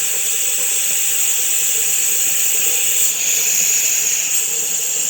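Pressurised CO2 hissing loudly and steadily out of a beer keg's pressure relief valve, bleeding off gas to purge the keg's headspace.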